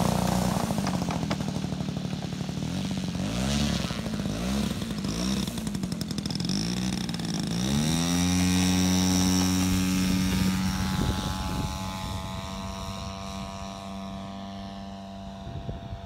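Model Ju 87 Stuka's propeller engine, its pitch rising and falling with the throttle as the plane taxis. About eight seconds in it sweeps up to full throttle for the takeoff run and holds a steady high note, which fades and drops slightly in pitch as the plane climbs away.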